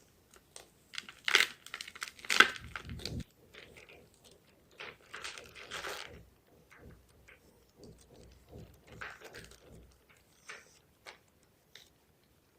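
Homemade gym chalk being crushed, crunching and crumbling in crackly bursts. The loudest crunches come in the first few seconds, followed by softer crumbling and a few scattered ticks.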